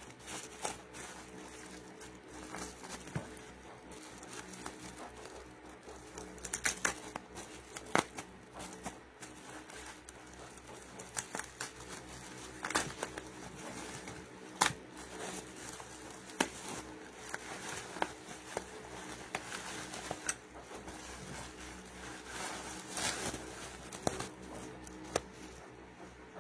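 Plastic bubble wrap crinkling and crackling as gloved hands handle and unwrap it, with irregular sharp clicks scattered throughout.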